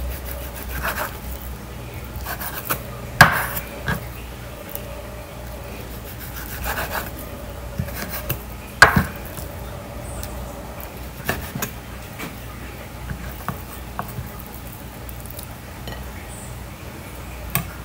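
Kitchen knife slicing raw beef on a wooden cutting board: scattered, irregular knocks of the blade on the board, the two loudest about 3 and 9 seconds in, with soft rubbing and scraping between them as the slices are pushed aside.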